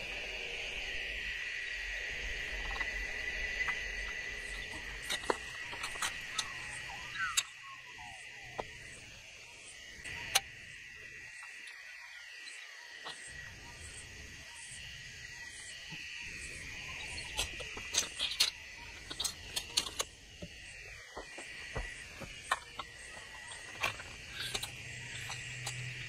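Steady chorus of crickets with a continuous high-pitched trill, with scattered sharp clicks and knocks from tools and plastic pipe being handled close by, most of them about 5 to 10 seconds in and again near the end.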